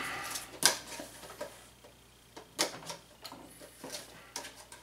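Plastic Heroclix miniatures and booster packaging being handled on a table: a handful of separate sharp clicks and light clatter, with a quieter gap in the middle.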